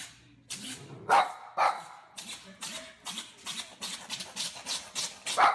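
A dog sneezing over and over, about a dozen short, sharp sneezes in quick succession.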